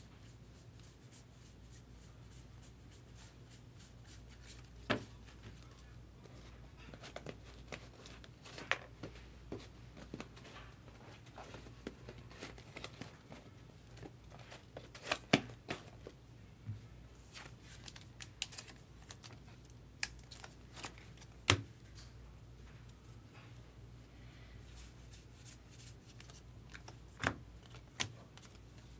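Baseball trading cards being flipped through and shuffled by hand: light sliding, flicking card sounds with a handful of sharper taps scattered through.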